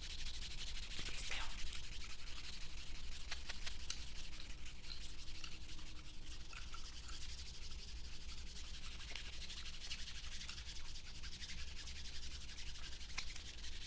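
Nail file rubbing against fingernails, a steady rasping with many small clicks throughout.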